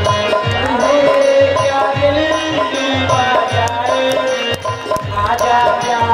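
Instrumental break in a Hindi film song: a gliding melodic lead over a steady drum beat, with no singing.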